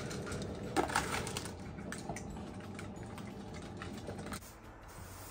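Dry cat kibble rattling out of a plastic tub into cat bowls: a scatter of small clicks and clatters, loudest about a second in. The clicking drops away after about four seconds.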